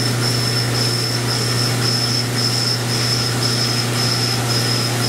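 CNC vertical milling machine cutting a metal block with an end mill under flood coolant: a steady machine hum with a high cutting whine that comes and goes about twice a second.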